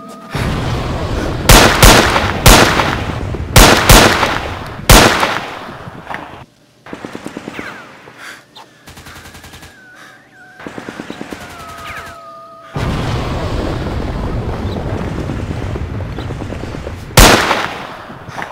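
Gunfire: several loud single shots in the first five seconds and another near the end, with short bursts of rapid fire around the middle, over a steady noise.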